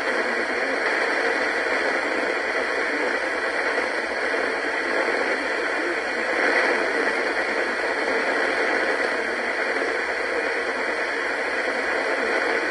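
Radio static: a steady hiss from a receiver picking up no clear signal, with no change in level.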